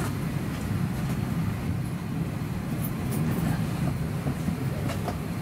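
Steady low rumble inside the cabin of an Airbus A330-300 parked at the gate, from the cabin air system, with a few faint clicks and rustles from passengers moving down the aisle.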